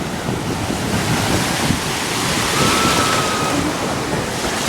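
Ocean surf washing onto a beach, swelling to a peak about two to three seconds in, with wind buffeting the microphone.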